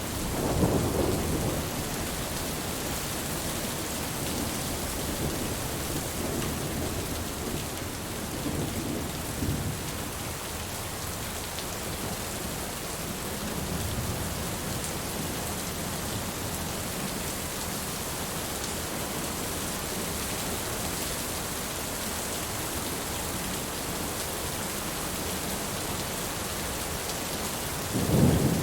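Steady rain with low rumbles of thunder, the loudest about a second in and near the end, with fainter ones in between.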